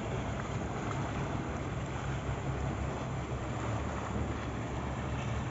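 A boat engine running steadily, a low even drone, under a rush of wind and water noise.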